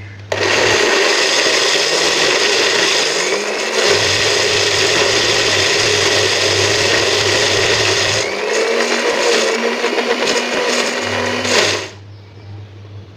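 Small electric countertop blender grinding bird's-eye chilies, curly red chilies, candlenuts and garlic into a spice paste. It starts just after the beginning, its note shifts about eight seconds in as the mix breaks down, and it cuts off near the end.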